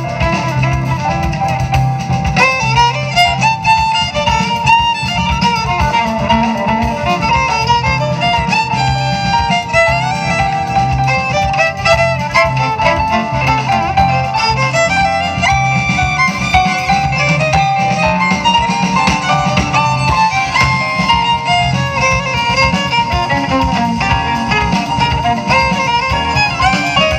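Jazz band playing an instrumental passage live, a violin carrying the melody over guitars and drums.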